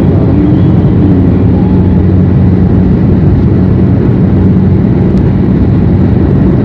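A vehicle engine running with a loud, steady drone and a low hum.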